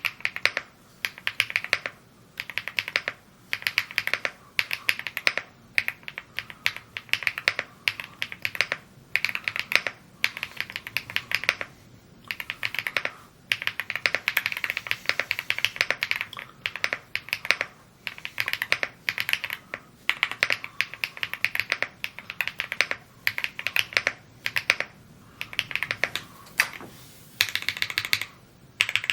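Typing on a Rainy75 mechanical keyboard: rapid runs of keystroke clacks with short pauses between words and phrases.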